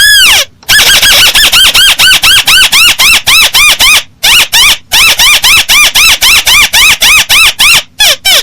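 Paddy-field crake (burung tikusan sawah) calling: a fast, loud series of short, arched, squealing notes, about four or five a second, with a brief break about four seconds in.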